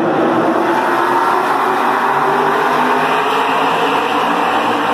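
A pack of NASCAR stock cars' V8 engines running past on the track in a loud, steady drone as the field comes around to start the race.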